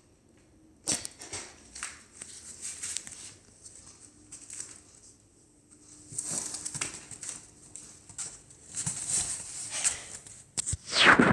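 Cat scrabbling and rustling in and on cardboard boxes: irregular bursts of scratching and rustling with a sharp knock about a second in and a louder burst near the end.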